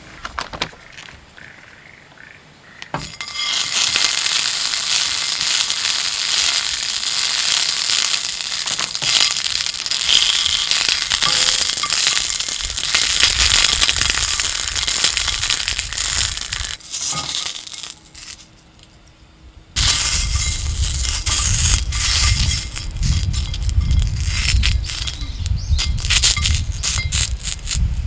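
Wood fire crackling loudly with dense popping as it catches, dropping away briefly two-thirds of the way through and returning with a low rumble of flame.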